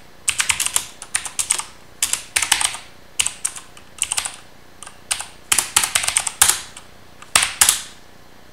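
Mechanical computer keyboard being typed on in short, quick bursts of clicking keystrokes with brief pauses between them.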